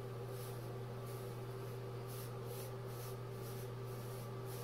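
Hair being brushed back with a hairbrush: short, scratchy swishes about twice a second over a steady low hum.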